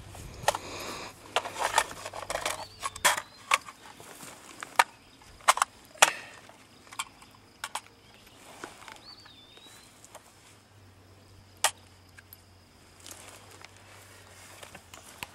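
Scattered sharp clicks and knocks of magazines and rifle parts being handled and set down on a plywood board, closer together early on, then a single knock later.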